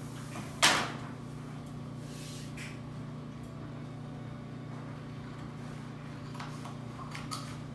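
A single sharp knock or clack just under a second in, over a steady low hum, with a few faint clicks and rustles near the end.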